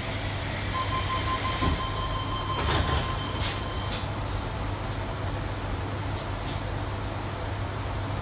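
Tangara train's passenger doors closing: a steady tone sounds from about a second in, the doors slide shut with a sharp thump about three and a half seconds in, and a few short hisses and clicks follow, over the stopped train's steady hum.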